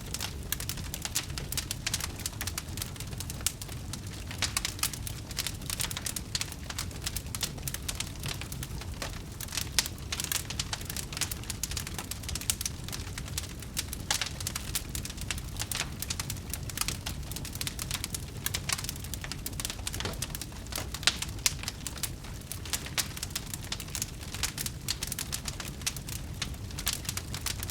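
Wood fire crackling: a dense, irregular run of sharp pops and snaps over a steady low rumble of the flames, with a few louder pops now and then.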